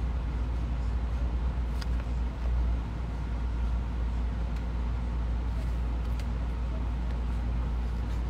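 Steady low rumble, with a few faint clicks on top.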